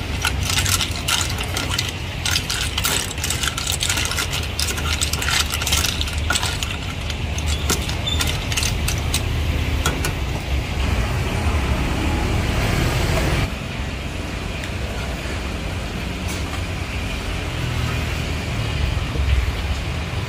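Snails in their shells being stirred with a metal ladle in a metal pot: rapid clinking and clattering of shell against shell and ladle against pot, densest over the first six seconds and sparser after. A steady low rumble runs underneath.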